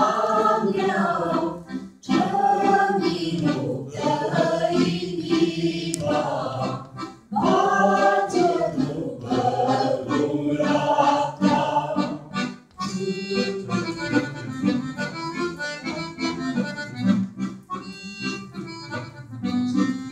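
Young girls' voices singing a folk song together without accompaniment; about thirteen seconds in the singing stops and an accordion starts playing a tune of quick notes.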